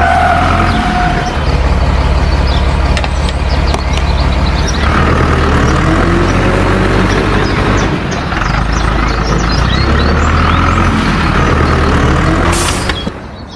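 Heavy vehicle engine running steadily, a low hum with scattered clicks and rattles, dropping away shortly before the end.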